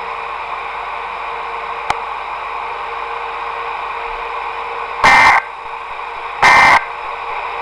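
Weather radio receiver hissing steadily, with a single click about two seconds in. Near the end come two short buzzing digital data bursts, about a second and a half apart: the EAS/SAME end-of-message code sent to close the required weekly test.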